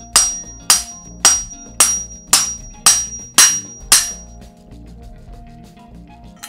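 Hammer blows on the head of a Park Tool star-nut setting tool, driving a star nut down into a fork steerer tube: eight sharp metallic strikes about two a second, each with a high ringing tone. The strikes stop about four seconds in, leaving soft background music.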